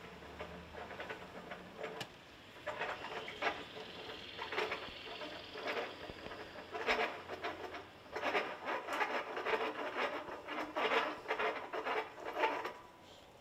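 Flagpole halyard rope hauled hand over hand: irregular rasping strokes of rope running through the pulley as the flag is raised. The strokes stop shortly before the end.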